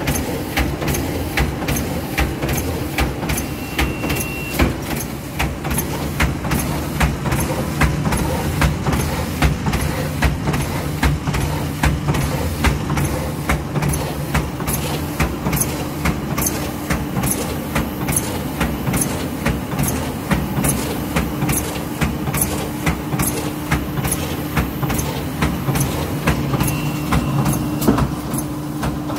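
Arvor GGL 128 automatic plastic-film bag-making and sealing machine running, a steady mechanical hum under a regular clacking about twice a second.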